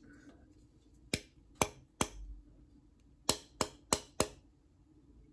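About seven sharp metallic clicks and snaps from a titanium framelock folding knife being worked by hand, some in quick pairs, with a soft low thump about two seconds in.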